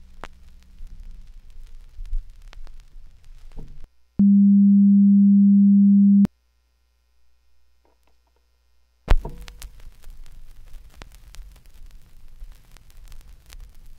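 Vinyl record surface noise with scattered clicks and pops, then a loud, steady low tone for about two seconds. A few seconds of near silence follow, then a sharp click as the second side of the LP starts playing, and the crackle resumes.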